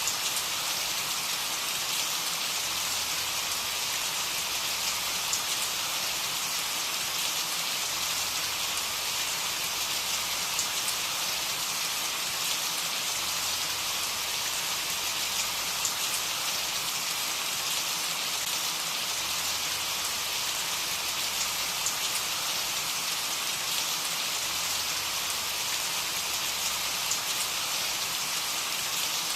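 Steady rain falling: an even hiss, with faint scattered drop ticks.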